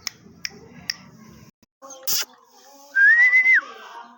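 A high whistle about three seconds in, lasting about half a second: it rises, holds, then drops off sharply. Before it come a few sharp clicks and a short burst of hiss.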